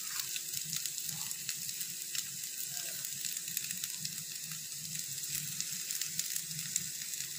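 Steady sizzling of scrambled egg frying in oil in a kadai, with scattered faint ticks as cooked rice is added by hand.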